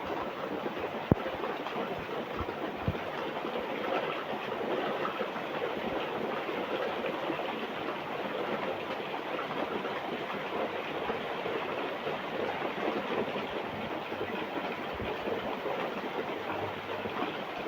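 Steady rain falling, an even continuous hiss, with two sharp clicks about one and three seconds in.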